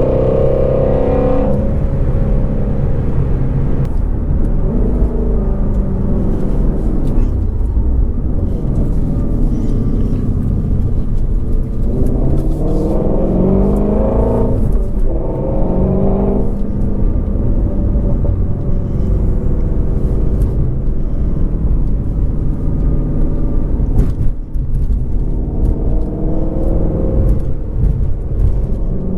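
2019 Shelby GT350R's 5.2-litre flat-plane-crank V8 under way. It starts at high revs that fall away, pulls up in a rising run that cuts off sharply about halfway through, then runs more steadily, with a few sharp pops a little before the end.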